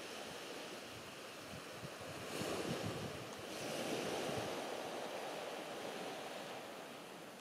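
Sea waves washing onto the shore, swelling twice in the middle, with gusts of wind buffeting the microphone.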